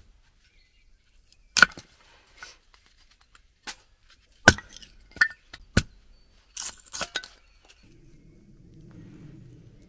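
Wooden kindling sticks being split with a knife: about ten sharp cracks and knocks, irregular and a second or so apart, some with a short metallic ring. Near the end a low, steady hum sets in.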